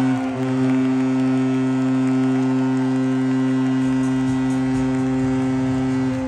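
Arena goal horn sounding one long, steady low blast with a rich stack of overtones. It cuts off suddenly about six seconds in.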